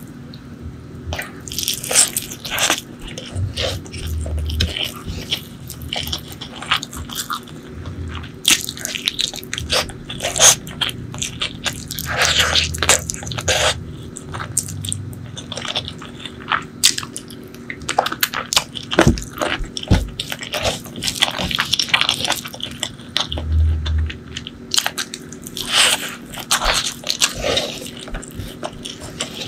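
Close-miked eating: crunching and chewing of crisp fried noodles and butter chicken, with many sharp, irregular crackles all through.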